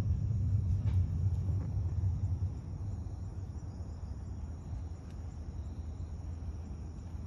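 Crickets chirping steadily, over a low rumble that is loud for the first two and a half seconds and then fades down.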